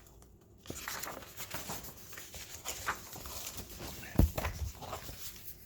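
Paper rustling and crinkling as pages and fold-out sheets of a manual are handled and turned, with scattered light clicks and one low thump a little after four seconds in.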